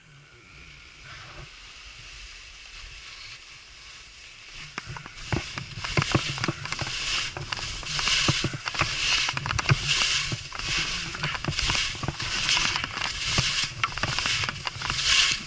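Skis scraping over hard-packed snow in quick, linked short turns, about one or two turns a second, over a low rumble of wind on the microphone. It starts quiet and grows loud about five seconds in, as the skier picks up speed.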